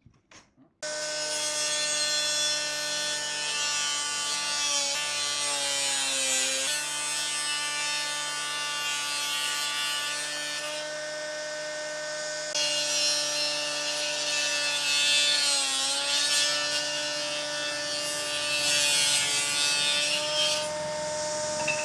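Table saw on a combination woodworking machine running and ripping a wooden block lengthwise: a steady motor whine with the hiss of the blade cutting. The whine dips in pitch briefly a few times as the blade takes load, and the cutting hiss stops for a moment about halfway through.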